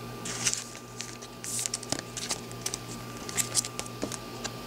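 Trading cards being handled on a table: light rustling with many small clicks and taps scattered throughout, over a faint steady hum.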